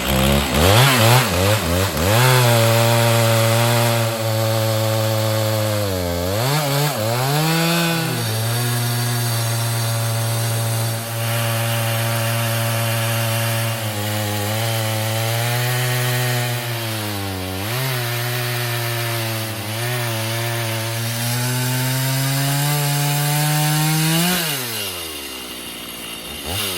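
Two-stroke chainsaw on a chainsaw mill ripping lengthwise through a pine log at full throttle. The engine note holds high and steady under load, sagging briefly a few times as the chain bites. Near the end the revs rise briefly, then drop away as the throttle is let off.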